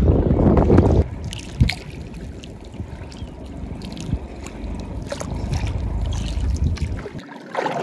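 River water sloshing and splashing as a person wades and gropes by hand for prawns. Wind rumbles on the microphone for about the first second, then quieter water sounds follow, with small scattered splashes.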